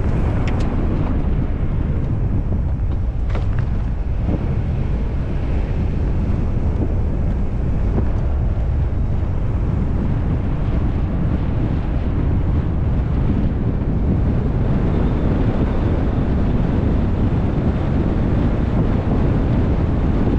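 Steady wind rumble on the microphone of a camera mounted outside a Ford Bronco Wildtrak driving a dirt track, with the truck's running noise beneath. A couple of faint clicks about half a second and three seconds in.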